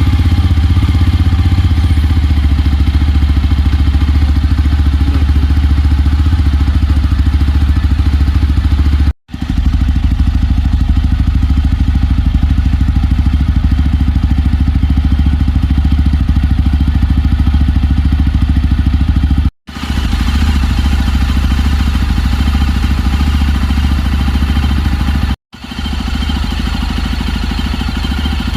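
Yezdi Roadster's single-cylinder engine idling steadily, its exhaust note heard loud and close. The sound drops out briefly three times, where the recording is cut.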